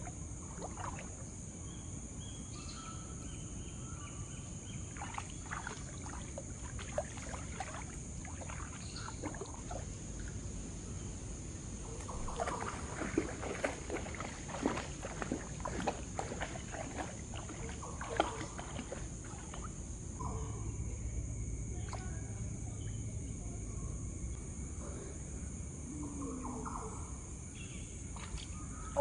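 Water splashing and sloshing in a shallow creek, with a run of irregular splashes in the middle, over a steady high-pitched insect drone.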